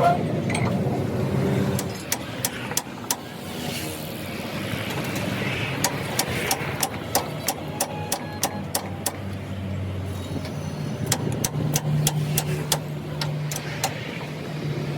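A motor or engine running steadily, with many irregular sharp clicks and knocks over it.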